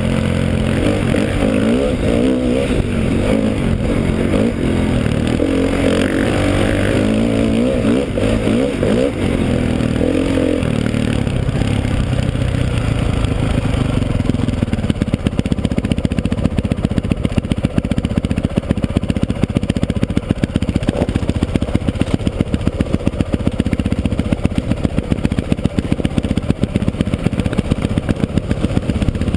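Dirt bike engine heard close from the rider's helmet, its pitch rising and falling with changing revs for the first ten seconds or so, then settling to low revs with an even, rapid pulsing through the second half.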